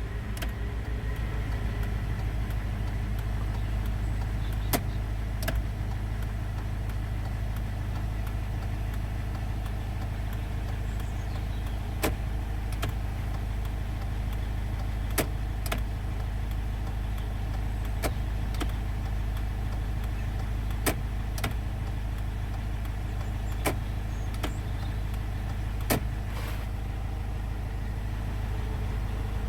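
Land Rover Freelander 1 engine idling steadily, with sharp clicks, mostly in pairs a little under a second apart, every few seconds as the indicators are tested.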